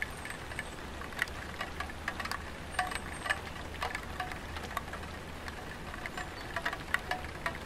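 Light rain falling on a tiled roof: scattered, irregular drips and taps, some with a short ringing plink, over a faint hiss. A steady low rumble runs underneath.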